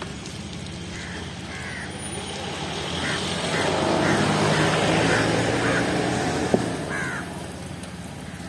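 Crows cawing, a string of short harsh calls, while a vehicle going by swells and fades in the middle.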